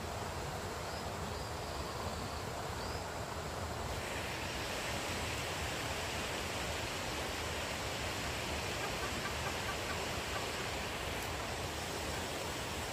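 Steady forest ambience: an even rushing hiss with a few faint bird chirps in the first few seconds. The hiss turns brighter about four seconds in.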